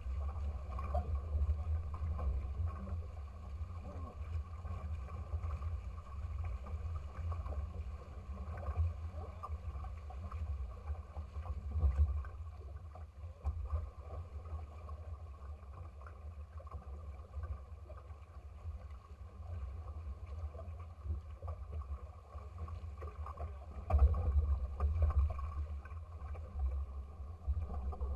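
Water washing and splashing past the hulls of a small sailing trimaran under way, over a low rumble on the microphone. It swells louder briefly near the middle and again near the end.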